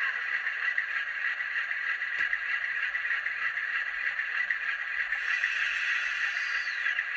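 DCC sound decoder in an N gauge Class 47 model locomotive playing the diesel engine's idle through tiny sugar-cube speakers, a steady, tinny drone with almost no bass. There is a single click a couple of seconds in, and a falling whine near the end.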